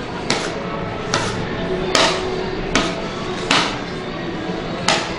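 A hand scraper slapping and patting a loaf of warm fudge against a marble slab as it is shaped, six sharp strikes a little under a second apart, the last after a longer pause.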